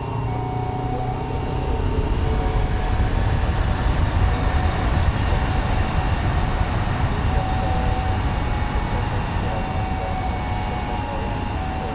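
Jet airliner engines running at high power, a loud steady rumble with a steady whine over it, swelling a little over the first few seconds and then holding.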